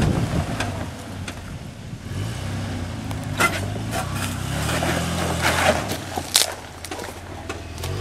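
Toyota LandCruiser 80 series engine running steadily at low revs as it crawls up a rock step, with a few sharp scrapes and knocks on the rock from about three seconds in.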